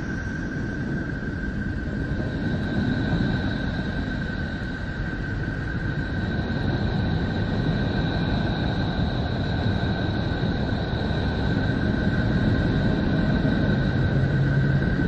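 Space 'sound' presented as that of the planet Neptune: recorded electromagnetic waves converted into audio. It is a steady, rumbling rush of noise with two thin, steady whistling tones above it, slowly getting a little louder.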